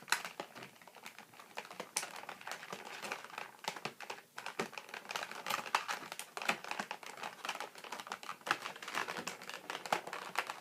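Many quick small clicks and rustles of plastic packaging being handled while twist-tie wires are undone to free an action figure from its tray.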